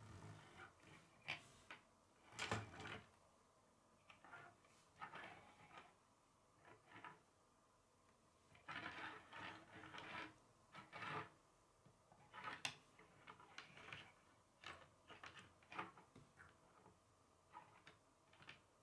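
Plastic K'nex rods and connectors tapping and scraping against a wooden tabletop as the model's legs are moved by hand: faint, irregular clicks and knocks, the loudest about two and a half seconds in.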